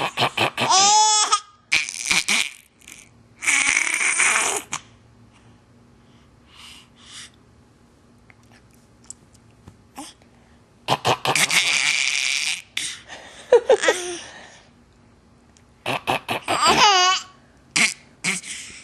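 A person clearing their throat loudly and repeatedly, in harsh rasping bursts of about a second each with quiet pauses between, mixed with short bursts of laughter that fall in pitch.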